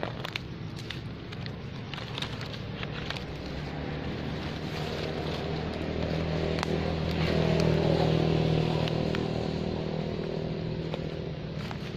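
A motor vehicle engine running steadily, growing louder to a peak about eight seconds in and then fading as it passes. Scattered light crackles of dry leaves underfoot.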